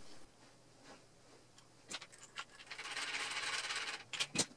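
Small metal parts clicking and scraping as the selector plate assembly is fitted onto an airsoft AK gearbox shell: a few light clicks, about a second of rapid scratchy ticking, then two sharper clicks near the end.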